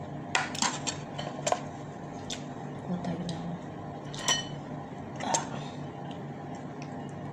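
Metal spoon and fork clinking and scraping against a frying pan as food is served from it, in scattered sharp taps; one strike about four seconds in rings briefly.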